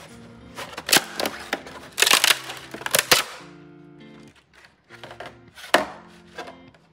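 3D-printed plastic support material cracking and snapping as it is pulled away from a print by hand. A dense run of sharp cracks and crinkles comes in the first few seconds, then it goes quieter, with another loud snap near the end, over background music.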